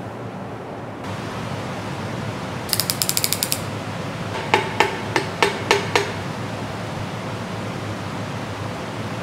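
Hand ratchet clicking as it runs bolts down on an engine block: a quick run of about ten clicks about three seconds in, then about six slower, separate clicks, over a steady hiss.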